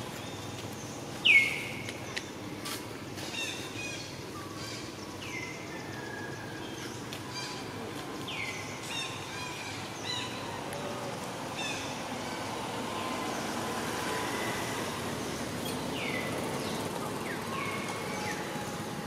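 Birds calling outdoors: a short call that swoops down in pitch, repeated every few seconds, over a steady background hiss. The first call, about a second in, is the loudest.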